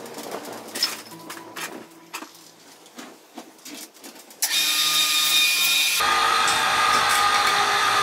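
Scattered clicks and knocks, then, about halfway through, an electric wire-rope hoist motor starts suddenly and runs with a loud, steady whine, hoisting a ride-on mower on a workshop jib crane.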